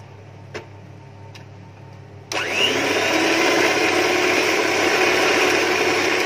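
Electric hand mixer switching on about two seconds in, its motor whining up to speed and then running steadily as the beaters whip eggs and sugar.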